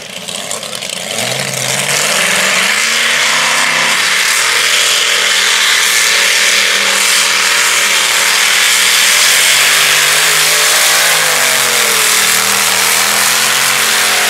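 Modified-class pulling tractor's engine revving up and running at full throttle as it drags the weight sled down the track. The pitch climbs in the first couple of seconds, then holds high with a brief dip and recovery about three-quarters of the way through.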